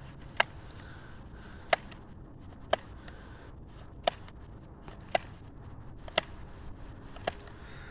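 Echo string trimmer head turned by hand, its spool clicking as it indexes round to line up the eyelet holes for new line. The sharp single clicks come about once a second, seven in all.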